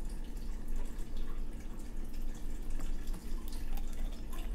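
Agave syrup pouring from a bottle into a plastic blender jar: a faint liquid trickle and drip, with a few light clicks near the end as the bottle is handled.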